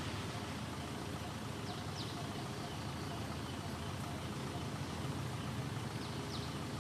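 Steady low rumble of outdoor background noise, with two faint, short high chirps, one about two seconds in and one near the end.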